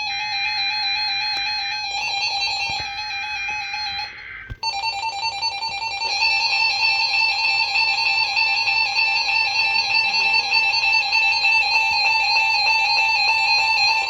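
Loud electronic tones in a fast repeating, stepped pattern, like a synthesizer phrase. A first passage breaks off briefly about four seconds in, then a steadier stretch of about ten seconds runs on and stops near the end.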